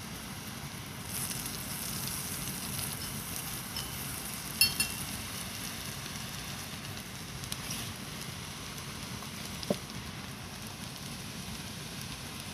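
Butter sizzling and foaming as it melts in a cast iron skillet over a charcoal grill, the sizzle getting louder about a second in. A few sharp clicks cut through it partway through.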